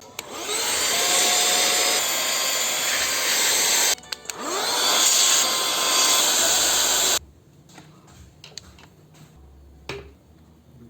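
A small electric motor tool runs in two bursts of about four and three seconds, its pitch rising as it spins up each time. It is followed by a few light clicks and a knock from handling parts.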